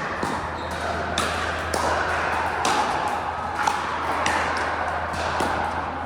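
Pickleball paddles striking a plastic pickleball in a rally: a string of sharp pops, irregularly spaced about half a second to a second apart, over a steady low hum.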